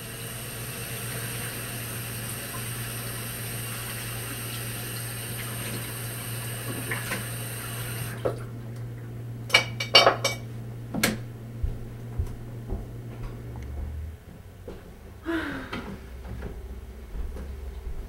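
Bathroom sink tap running steadily, shut off about eight seconds in, followed by a few sharp clinks and knocks of things handled at the sink.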